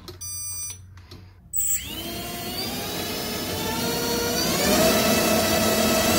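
A few short electronic beeps, then an AOKFLY RV1407 3700KV brushless motor spinning a 4-inch propeller on a 3S battery spins up. Its whine, with the rush of the propeller, rises steadily from about two seconds in and levels off at a loud, steady pitch near the end.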